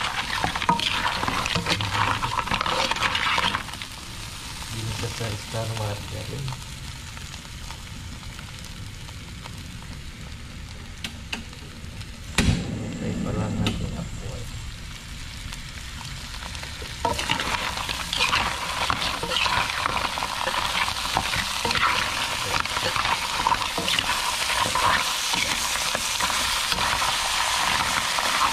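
Mud crab frying in hot margarine and garlic, a dense sizzle and crackle. It drops quieter after a few seconds, with one sharp knock partway through, then sizzles loudly again from a little past halfway.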